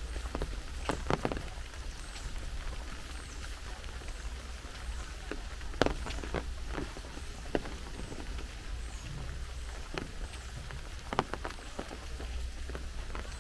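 Steady rain hiss with irregular sharp taps of single drops landing close by. A low steady rumble runs underneath.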